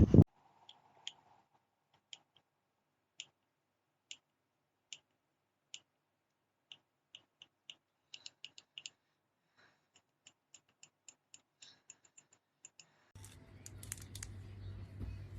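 A series of small, sharp clicks, about one a second at first, then in quicker runs of several a second. Near the end a low hum and a steady hiss come in under them.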